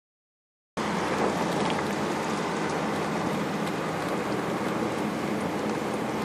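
Steady road and wind noise of a car driving along, with a faint low engine hum; it cuts in suddenly under a second in.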